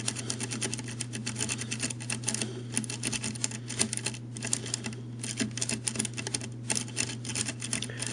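Bogota rake being worked rapidly in and out of a Schlage five-pin cylinder's keyway under tension, giving a fast run of light metallic clicks and scrapes as the pins are raked.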